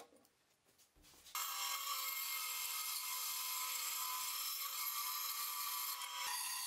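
Benchtop bandsaw cutting through a block of apricot wood, starting abruptly about a second in and running steadily with a high, hissing whine.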